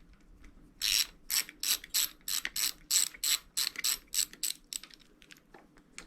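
Ratchet tool clicking as the handlebar control housing screws are tightened down, about four clicks a second for some four seconds before it stops.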